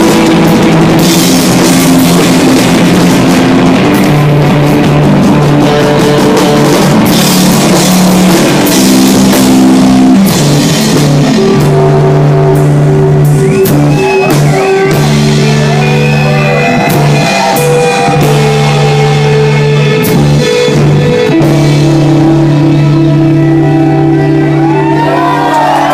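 Live rock band playing loud: electric guitar and bass holding long sustained notes over a drum kit, with frequent cymbal crashes in the first half.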